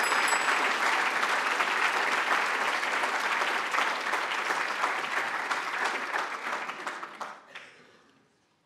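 A large audience applauding, the clapping thinning out and dying away about eight seconds in.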